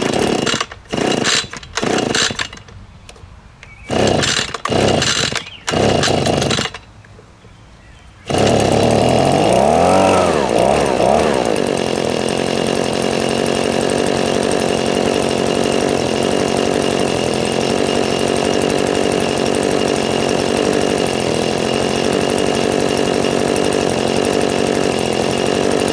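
Echo PB-2520 two-stroke leaf blower engine being pull-started: a series of short strokes of the recoil starter cord, then about eight seconds in the engine catches. It briefly rises and falls in pitch, then runs steadily on full choke and full throttle on its first-ever start.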